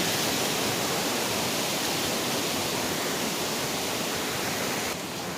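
Waterfall rushing steadily: an even hiss of falling water with no breaks. It drops a little in level near the end.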